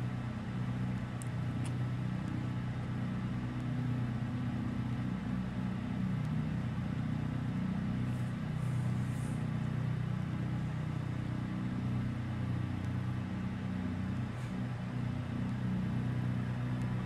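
A steady low droning hum with no other sound standing out.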